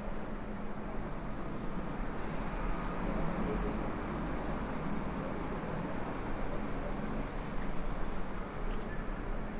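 Steady city street traffic: a continuous rumble of passing cars and other vehicles.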